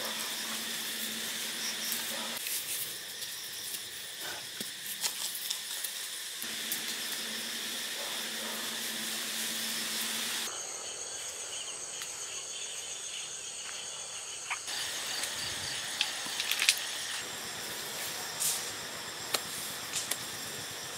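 Steady chirring of night insects such as crickets, with occasional short clicks and scrapes of stones being pressed and set into wet mortar.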